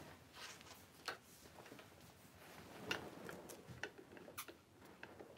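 Faint, scattered clicks and light knocks from a plastic bottled drink with a straw being picked up and handled.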